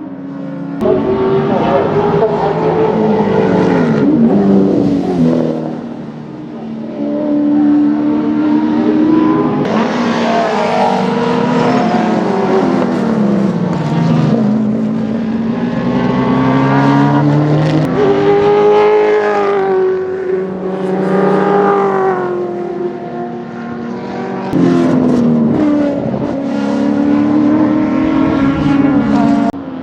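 Historic Group A / Group C touring car engines running hard at racing speed, the revs climbing and dropping repeatedly through gear changes and braking.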